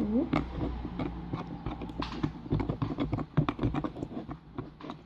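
Glue-and-water slime mixture being stirred and worked in a bowl: a rapid, irregular run of clicks and wet taps.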